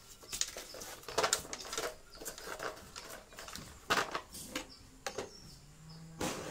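Irregular clicks, rustles and knocks of red insulated electrical wire being pulled off its coil and handled against wooden mounting boards.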